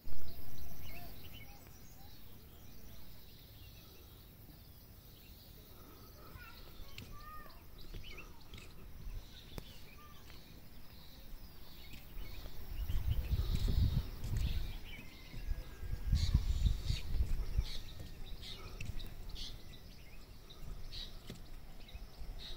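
Wind buffeting the microphone in uneven low gusts, strongest a little past the middle, with scattered bird chirps; a brief thump at the very start.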